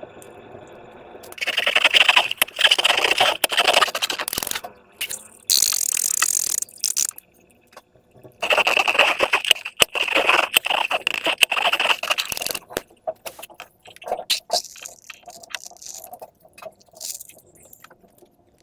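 Slime being squeezed and worked by hand, giving sticky crackling and popping in two long bursts with a short hiss between them.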